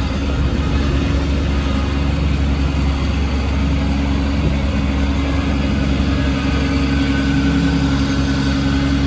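Kubota B26 tractor loader backhoe's 26 hp Kubota diesel engine running steadily at an even speed.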